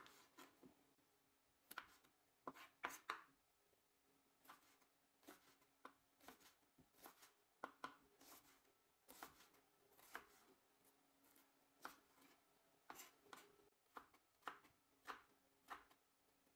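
Chef's knife chopping a red onion on a bamboo cutting board: irregular sharp knife strikes on the board, some single and some in quick runs of two or three, with short pauses between.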